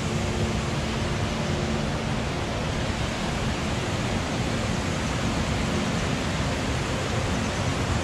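Steady rush of the river tumbling over the wide, stepped rock ledges of the Ballysadare waterfall.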